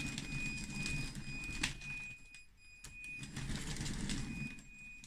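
Electric track motors and chain tracks of a 3D-printed RC CAT D6T bulldozer running in two stretches with a short pause between, under a thin high whine and a few clicks. The tracks have just been cleaned of packed clay and are running smoothly.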